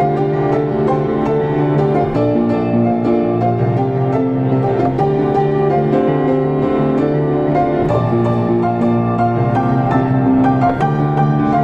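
Diapason grand piano played solo: flowing chords over held bass notes, with a repeated figure in the upper notes.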